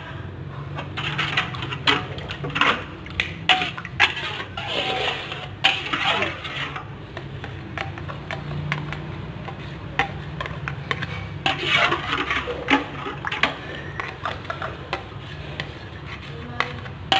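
A metal spoon stirring a thin sauce in a wok, scraping and clinking against the pan in irregular strokes.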